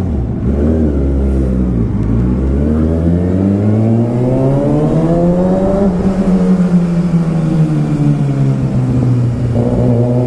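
Inline-four engine of a Kawasaki ZX-6R running through a baffle-less M4 Street Slayer exhaust. Its note climbs steadily in revs for about six seconds, then slowly drops off and settles to a steady note near the end.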